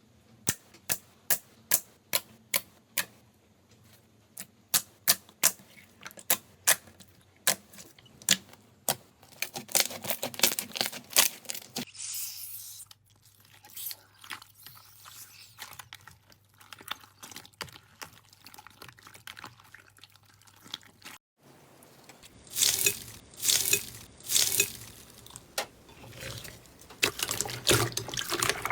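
Slime being squeezed, poked and pressed by hand, making sharp wet clicks and pops about twice a second. After a cut it turns to a quieter, softer squishing, then to denser crackling pops near the end.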